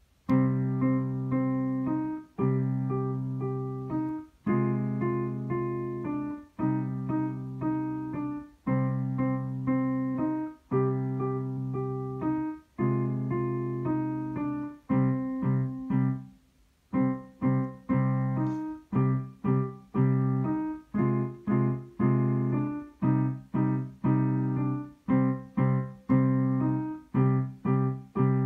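Yamaha digital piano played with both hands: slow phrases of held notes, each about two seconds long with a short break between. After a brief pause about halfway through, a quicker run of short, separate notes follows.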